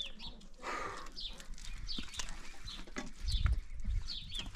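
Small birds chirping over and over in short, high, falling notes, with a low rumble about three seconds in.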